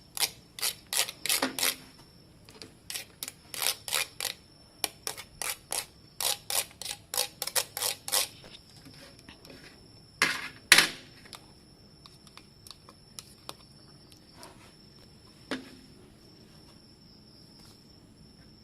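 Bilimbi fruit (belimbing wuluh) being grated on a hand grater: a run of short scraping strokes, about two or three a second, for the first eight seconds. Then comes a louder pair of strokes about ten seconds in, and after that only a few scattered ones.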